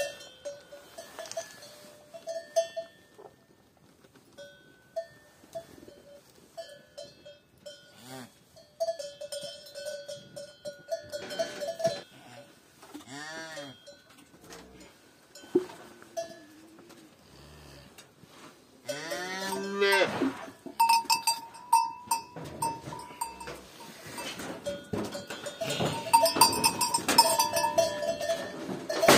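Calves mooing a few times, the loudest call about two-thirds of the way through, among a small bell ringing on and off.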